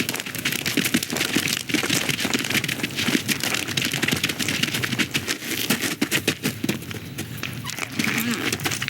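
Animated-film sound effects: a dense, continuous patter of many small clicks and taps over a noisy wash.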